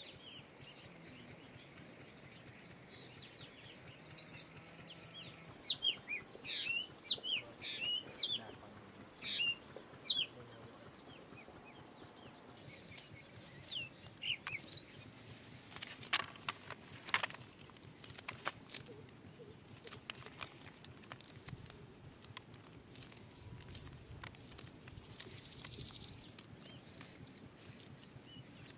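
Birds chirping in quick, repeated short calls over a faint outdoor background, thickest in the first third, with a few scattered calls later. Several sharp clicks come in the middle.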